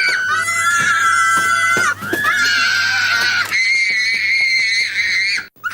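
A child's tantrum screaming: long, very high-pitched held screams, three in a row with short breaks between them, then a brief gap near the end.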